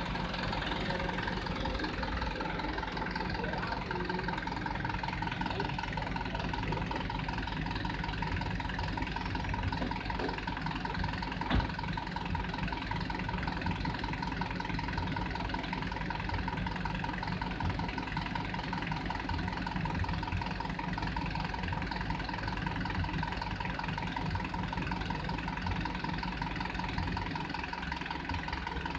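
Diesel engine running steadily at idle, with a constant hum and one short knock about eleven seconds in.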